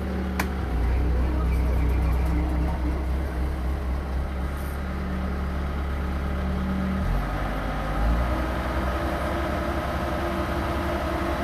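Concrete mixer truck's engine running steadily close by, a deep continuous hum whose note shifts about seven seconds in.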